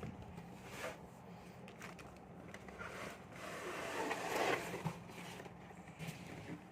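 Toy packaging being handled: soft scraping and rustling of a cardboard box and its contents with a few light clicks, loudest about four seconds in.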